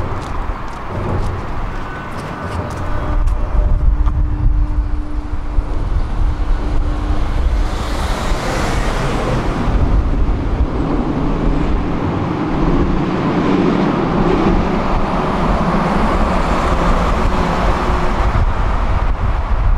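Tram running along its tracks: a steady low rumble of wheels on rails and motor. There is a brief hissing rush about eight seconds in, and the rumble grows fuller in the second half.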